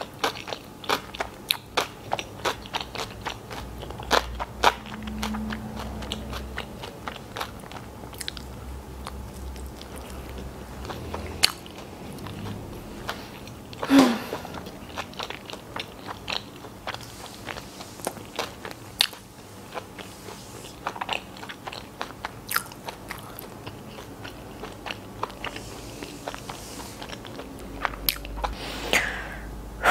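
Close-miked chewing of a chicken-mayonnaise sandwich on soft white bread with lettuce: wet mouth clicks and smacks, dense at first and thinning out later. One louder mouth sound comes about fourteen seconds in.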